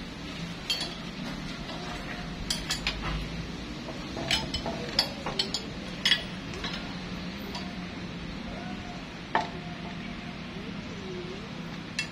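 Steel combination wrenches clinking against each other and against the bolts and cast metal housing of a flow meter as its cover bolts are worked: sharp, irregular metallic clinks, several of them, over a steady low hum.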